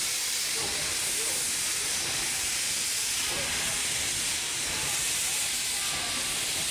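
Victorian Railways A2-class steam locomotive 986 moving off slowly, a steady loud hiss of steam blowing from around its cylinders.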